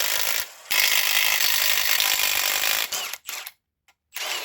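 Small handheld power tool, a cordless drill/driver type, running in long bursts with a short pause about half a second in, then stopping and starting in short bursts near the end.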